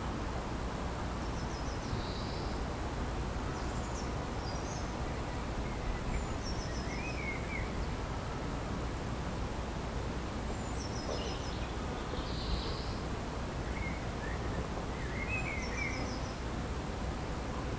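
Small birds singing in short phrases of quick high notes every few seconds, over a steady low rural background rumble.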